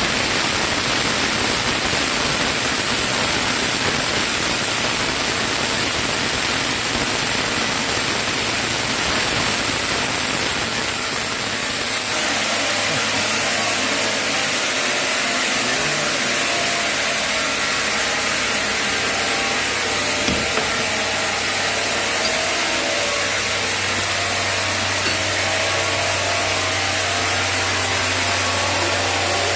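Sawmill saw running with a loud, steady noise while sawing a chinaberry log into boards. About twelve seconds in the sound changes and a steady low hum comes up.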